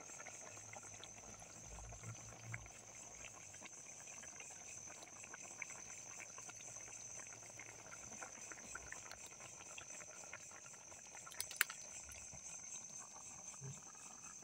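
Crickets chirping in a steady high trill, with faint scattered crackles and one sharper crack about eleven and a half seconds in.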